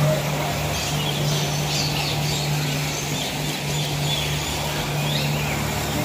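Fountain jets splashing steadily into a pool, with a steady low hum underneath and birds chirping now and then.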